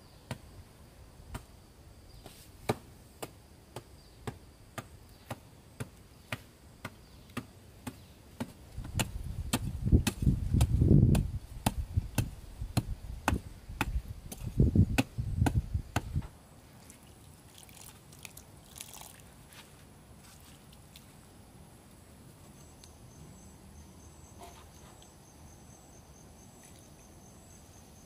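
Sharp, evenly spaced knocks, about one and a half a second, with a louder low rumbling stretch in the middle. The knocks stop about two-thirds of the way through, and a faint high pulsing trill sets in near the end.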